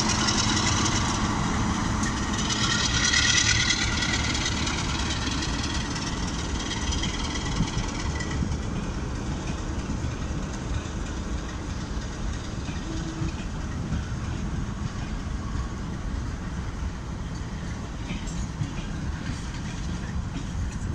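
Class 45 'Peak' diesel locomotive running as its train moves through the station, the engine hum strongest at first, then passenger coaches rolling past with a steady rumble and wheel clatter. A brief high squeal comes about two to four seconds in.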